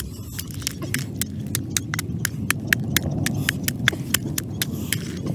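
Wooden pestle pounding garlic and red chilies in a mortar: a steady run of sharp knocks, about four a second.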